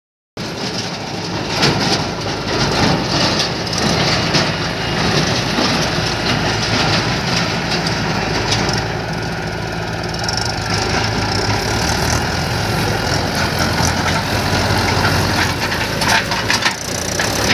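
Diesel tractor engines idling steadily with a low, even drone.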